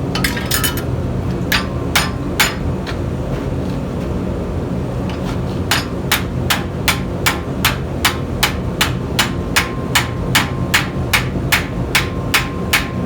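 Hand hammer striking hot iron on an anvil while forging a nail: a few ringing blows at first, a pause, then a steady run of blows about three a second that lasts to the end. A steady low rumble runs underneath.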